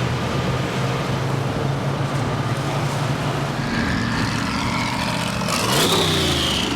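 Car engine and road noise running steadily, then a vehicle passes close near the end, its engine pitch sweeping as it goes by.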